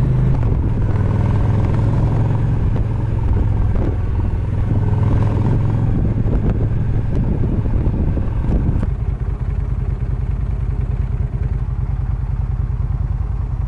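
Motorcycle engine running on the move, with wind and road rush over it. About nine seconds in the rush fades and the engine settles into a slower, even beat as the bike slows to turn in.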